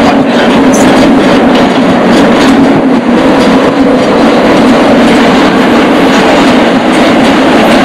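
Freight train in motion, heard from on board an open car beneath a truck trailer: a loud, steady rumble and rattle with a low drone and scattered clicks of the wheels.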